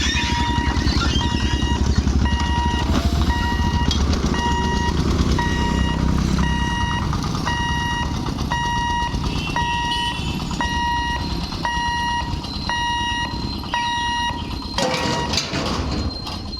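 Electronic warning beeper at a railway level crossing sounding a steady beep of about half a second, about once a second, over the low rumble of a BEML EMU train passing through the crossing. The rumble is heaviest for the first six seconds or so, then eases.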